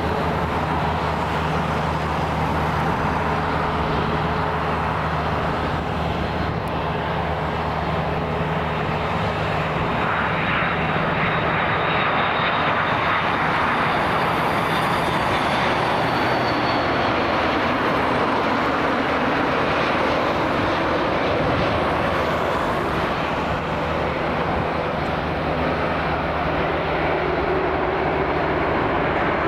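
Airbus A330 airliner's Rolls-Royce Trent 700 turbofans on final approach to land: a steady jet rumble with a thin high whine over it in the middle.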